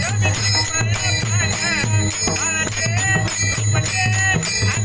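Devotional kirtan music: a melodic line that glides and bends in pitch over a steady beat of a low drum, with small metal hand cymbals and bells ringing on the beat.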